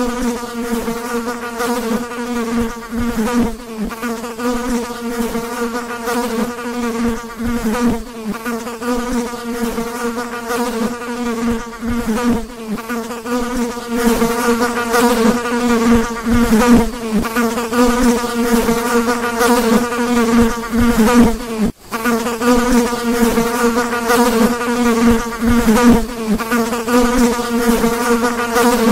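A fly buzzing in flight: a steady, slightly wavering hum with many overtones. It gets a little louder about 14 seconds in and breaks off for an instant about 22 seconds in.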